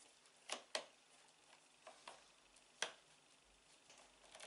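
Phillips screwdriver turning a large screw into a baby rocker's kickstand fitting: a handful of faint, sharp clicks at uneven intervals, the loudest about three seconds in.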